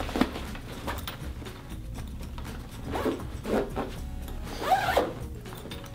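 Zipper on a padded soft rifle case's main pouch being pulled closed in several short pulls.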